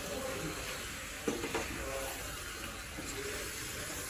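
A hand mixing pieces of catfish with onion and spices in a metal pot: wet squishing and rustling over a steady hiss, with a sharper knock about a second in.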